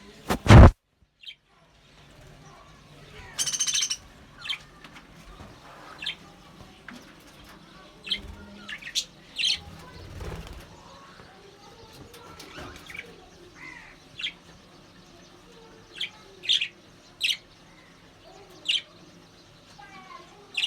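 Budgerigars chirping, with short high calls scattered throughout and a longer buzzy call a few seconds in. A loud, sudden noise comes about half a second in.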